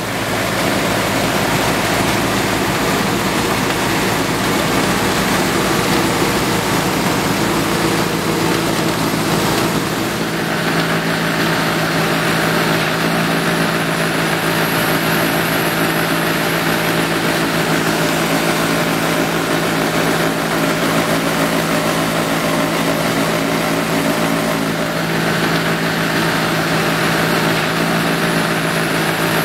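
Tractor engine running steadily under load, powering a self-loading snow wagon's front snow-blower rotor as it churns snow up into the wagon. The engine note shifts about ten seconds in.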